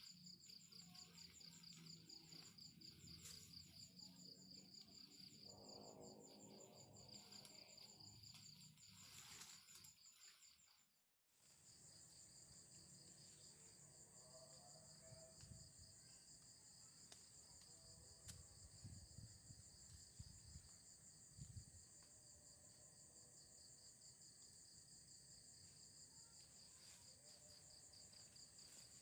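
Faint chorus of insects trilling steadily at two high pitches, with a fine pulsing texture, cut off for a moment about eleven seconds in and then continuing.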